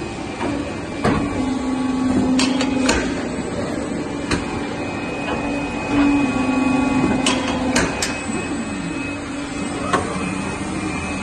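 A 2007 Polar 115 XT guillotine paper cutter running: a steady motor hum that grows louder in two stretches, about a second in and again about six seconds in, with several sharp mechanical clicks. Near the end the hum's pitch falls away.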